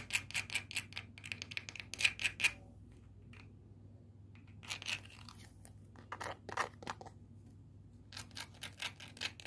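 Fingernails picking and scratching at a small craft piece held in the hands: a run of quick, sharp clicks and scratches in several short bursts with brief pauses between.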